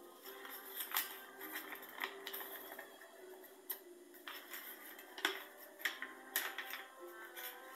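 A sheet of origami paper being folded and creased by hand: crisp crinkles and rustles at irregular moments, the sharpest about a second in and again about five seconds in. Quiet background music plays underneath.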